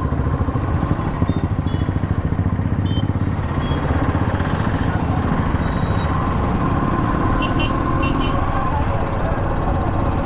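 Motorcycle engine running steadily while riding, with an even low exhaust beat.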